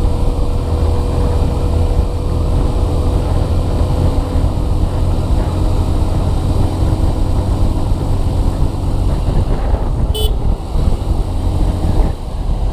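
Wind rushing over a helmet or bike-mounted camera together with a motorcycle's engine and tyres at highway speed, a heavy, steady low rumble. A faint steady tone runs through the first few seconds, and a brief high click comes near the end.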